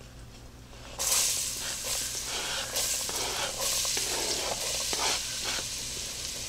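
Chopped onion and green bell pepper dropping into hot dark-brown roux in an enameled cast-iron Dutch oven, setting off a loud sizzle that starts suddenly about a second in and keeps going as more vegetables slide in off the cutting board.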